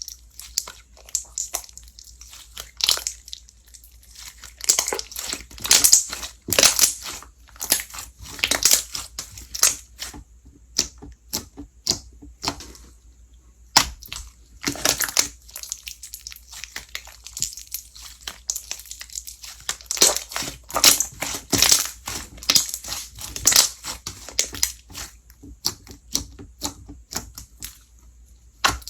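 Slime being squeezed and pressed by hand, giving irregular clusters of crackles and pops with short quiet gaps between handfuls.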